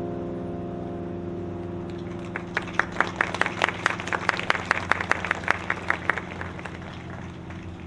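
Tower bell notes dying away, then a small audience clapping for about four seconds, the separate claps clearly audible, before it fades out.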